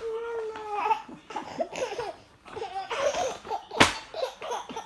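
Baby laughing: a held, pitched vocal sound at the start, then giggles in short, quick bursts. About four seconds in, one sharp slap of a hand striking the paper of a magazine page.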